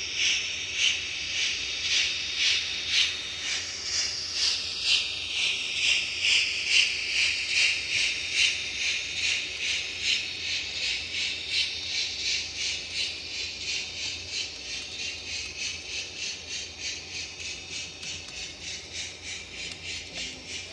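Model D51 steam locomotive's DCC sound decoder playing a steady, rhythmic steam chuff through its small speaker. The chuffs come a little quicker and slowly grow fainter as the train runs.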